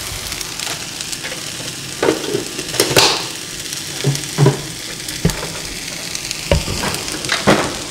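Steak, rice and fresh basil sizzling in a frying pan with a steady hiss, stirred with a spatula at first. Several short knocks and clatters come on top of it.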